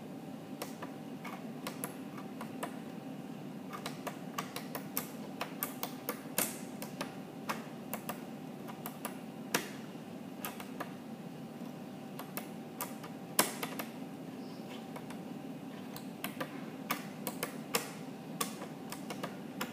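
Irregular clicking of keys being pressed: scattered single clicks at uneven spacing, some much louder than others, with the loudest a little after halfway. A steady low hum runs underneath.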